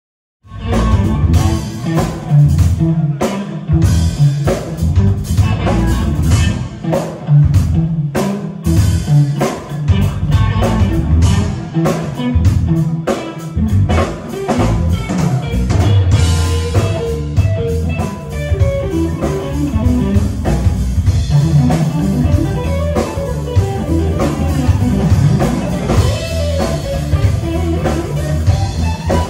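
Live instrumental rock played by an electric guitar, electric bass and drum kit, the guitar playing lead lines over the bass and drums; no singing.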